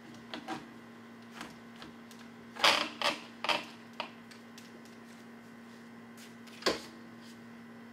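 Metal clicks and clanks of a hitch-mounted platform bike rack's frame-hold arm being worked down onto the bicycle and locked in place, loudest in a cluster about three seconds in, with a single knock near the end. A steady low hum runs underneath.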